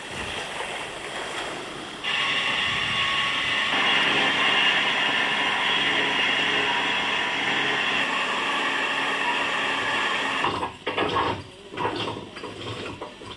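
Water sloshing for about two seconds. Then an electric winch motor starts suddenly and runs with a steady whine as it hauls in rope. It stops about ten seconds in, and irregular knocks and rattles follow.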